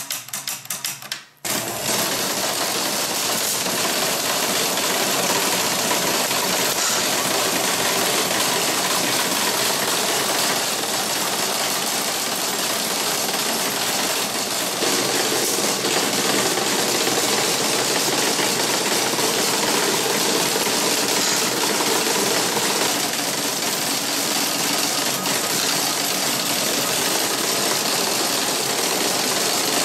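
Baker's Pacers horse-racing slot machine mechanism running. It opens with rapid, even ticking from the contact wiper disc stepping round. About a second and a half in it gives way to a dense, steady mechanical clatter of the running race mechanism, its motor, chains and gears driving the horses along their rods.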